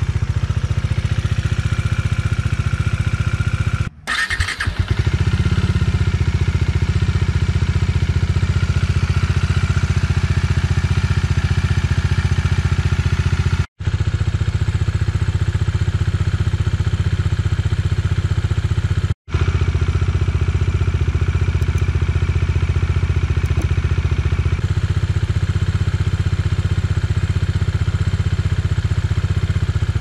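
Bajaj Dominar 400 UG's single-cylinder engine idling steadily. The sound cuts out briefly three times.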